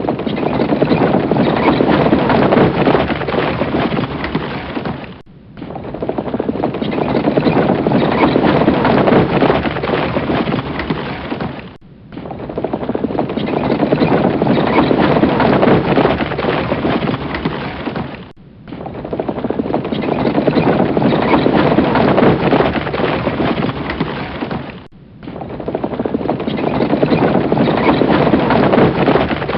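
Horses' hooves galloping in a dense, continuous clatter. The same stretch repeats about every six and a half seconds, each pass swelling in and fading out.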